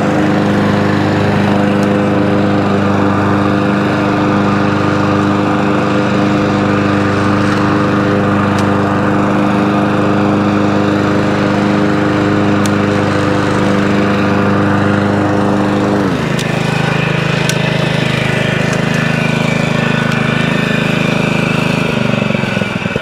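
Honda GXV160 single-cylinder four-stroke mower engine running steadily at speed, then dropping sharply to a low idle about 16 seconds in and fading out as it dies near the end. It won't hold an idle, which the owner puts down to the idle speed needing to be tweaked up after the governor arm was unwound.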